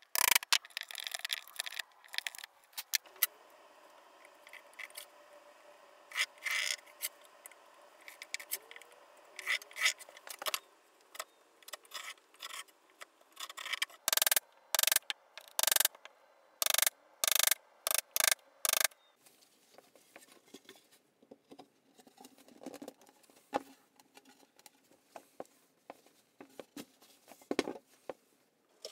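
Chisel being driven into spruce to chop mortises, a series of sharp knocks, densest and loudest about halfway through, with quieter scraping and paring of the chisel in the wood between and afterwards.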